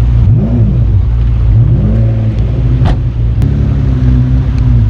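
Car engines at low speed: a steady low engine drone with two short revs that rise and fall back, and a sharp click about three seconds in.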